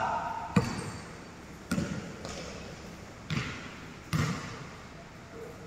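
Basketball bouncing on a hardwood court, four uneven dribbles about a second apart, each ringing on in the gym's echo.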